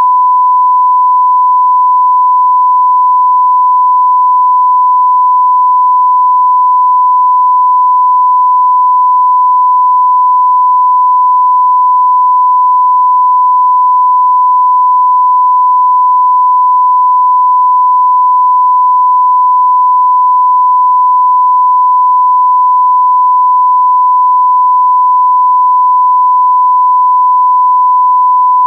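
TV test tone: one loud, steady, pure electronic beep held without a break.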